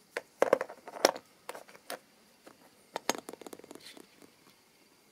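Small metal pin badges being handled: sharp clicks and light scrapes in two clusters, one just after the start and another about three seconds in.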